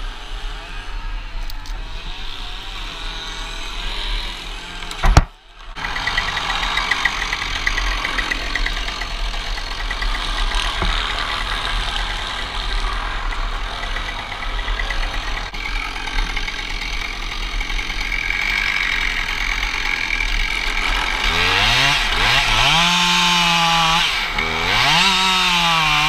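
Petrol chainsaw revved up and down several times in the last few seconds as it starts cutting into the trunk. Before that there is a steady rushing background noise, with one sharp loud thump about five seconds in.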